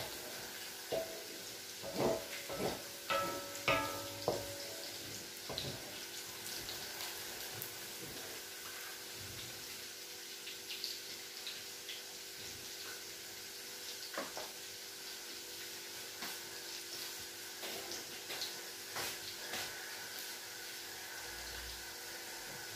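Minced garlic frying in oil in an aluminium wok, a steady soft sizzle. A wooden spoon knocks and scrapes against the wok several times in the first few seconds, then only the sizzle goes on with a few small clicks.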